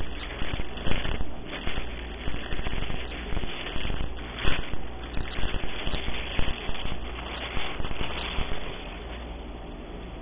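Clear plastic wrap crinkling and crackling as hands pull it off a statue, easing off near the end.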